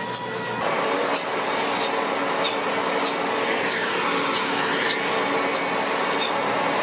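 A machine running steadily: a rough, even mechanical noise with a low steady hum. It changes abruptly about half a second in, then stays even.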